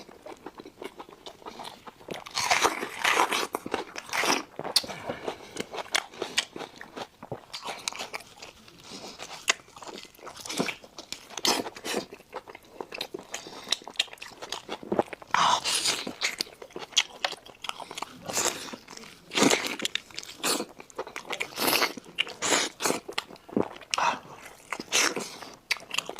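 A person biting and chewing crunchy food, with irregular sharp crunches.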